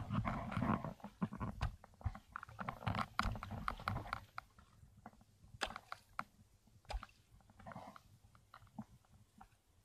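Shallow seawater splashing and sloshing in small irregular splashes, busy for the first four seconds or so, then sparser and fainter.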